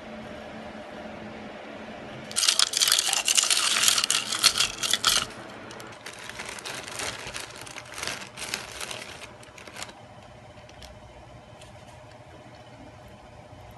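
Plastic courier mailer bag crinkling as it is handled: a loud stretch of dense crinkling from about two to five seconds in, then softer scattered rustles that die away about ten seconds in.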